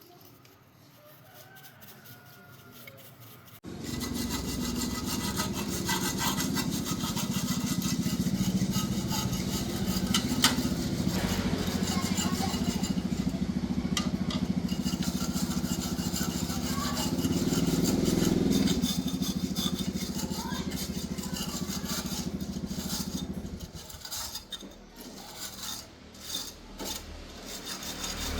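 Steady mechanical rubbing and scraping that starts a few seconds in, runs evenly for about twenty seconds, then turns broken and intermittent near the end.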